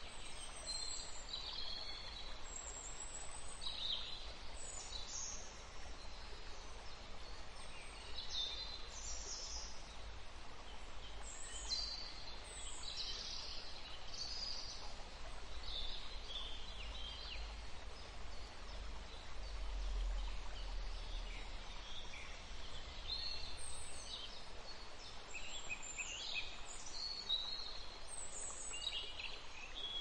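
Songbirds chirping in many short, quick calls that fall in pitch, over a steady hiss of distant running water, with a low rumble that swells briefly about twenty seconds in.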